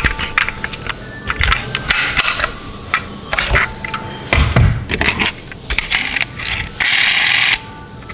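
Die-cast metal toy cars being handled: a run of sharp clicks and clatters as a door is worked and the cars knock together, with a heavier thump about four and a half seconds in and a scrape of well under a second near the end.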